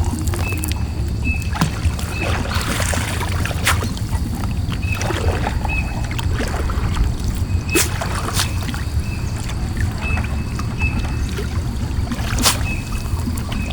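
Small fishing boat on a river: a steady low drone with water sounds and a few sharp knocks.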